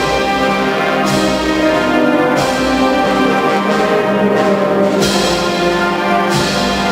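Wind band playing a Spanish Holy Week processional march: full held brass chords, with percussion strokes landing four times.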